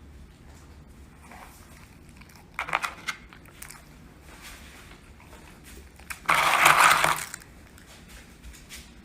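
Crunching and crinkling noises from a dog getting into cookies left out: a few sharp crackles, then about a second of loud crinkling near the end.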